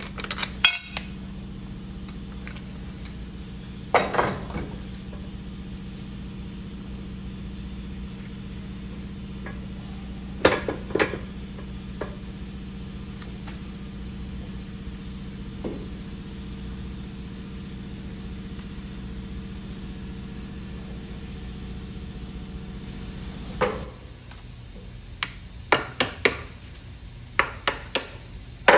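Hammer blows on the steel yoke of a truck's drive-axle U-joint during its removal: a few scattered sharp metal strikes, then a quicker run of strikes over the last few seconds. A steady low hum underneath stops about 24 seconds in.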